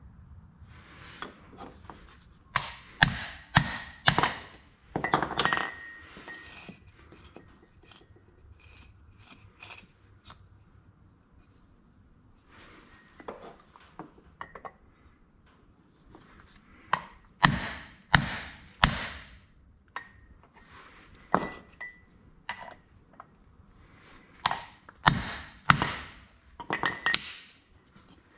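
Hammer blows on a length of steel pipe used as a drift, driving a seized clutch thrust bearing from a 1958 Massey Ferguson 65 off its carrier. The metal-on-metal strikes come in several short runs of three to six, each ringing briefly.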